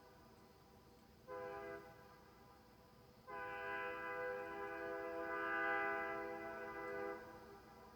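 Princess Auto chrome three-bell air train horn, a copy of the Nathan Airchime K3L with plastic diaphragms, sounding its chord. A short blast comes about a second in, then a long blast of nearly four seconds that swells louder in the middle before cutting off.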